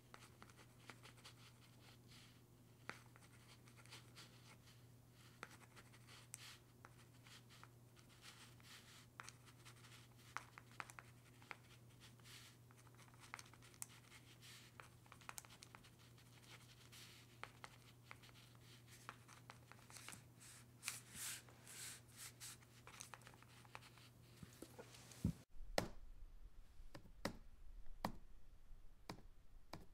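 Pen writing on paper: quiet scratching strokes and small taps over a steady low hum, busiest a little after 20 seconds in. About 25 seconds in it cuts to a few separate sharp clicks of keys being pressed.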